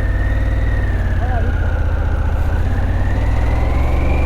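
Harley-Davidson Pan America's 1250 V-twin engine running steadily as the bike pulls away, with a thin steady whine above it that drifts slowly in pitch.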